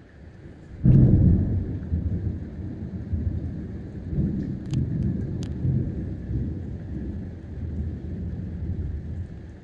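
A loud crack of thunder about a second in, followed by a long rolling rumble that swells and eases off near the end, over the steady hiss of heavy rain.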